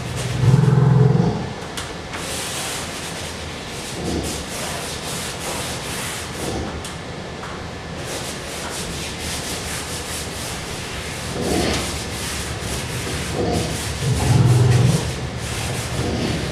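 A dry black drawing medium scratching and rubbing across a large hanging sheet of paper in repeated strokes. Two louder low rumbles come through, about a second in and again near the end.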